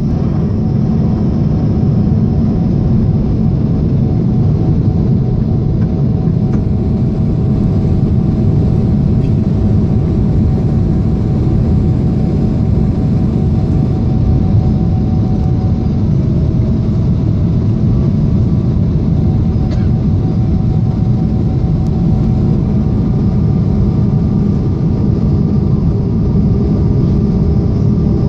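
Cabin noise inside a Boeing 777-300ER in flight: a heavy, even rumble of airflow and its GE90-115B engines, with a few faint steady hums above it.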